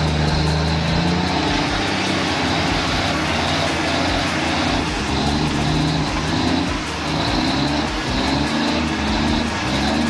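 Diesel engine of a log-loaded semi truck working hard through mud, its pitch wavering up and down as the throttle changes.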